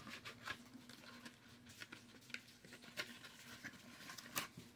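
Faint, irregular small clicks and crinkles of a cardboard Snack Pack carton and its plastic pudding cups being handled and turned over, with a faint low steady hum underneath.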